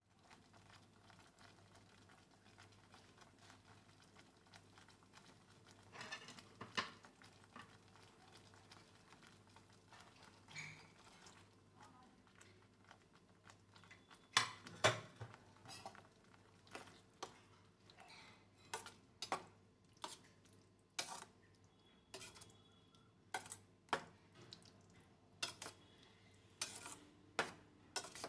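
Faint clinks of a metal spoon against a cooking pan while stirring, a few at first, then about one a second through the second half.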